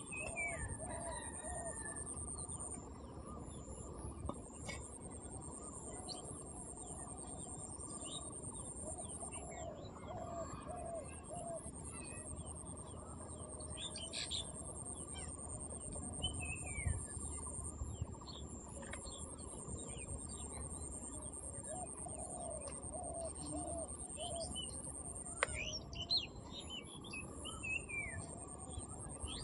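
Birds chirping and calling, with several runs of five or six low clucking notes, over a steady high-pitched hum.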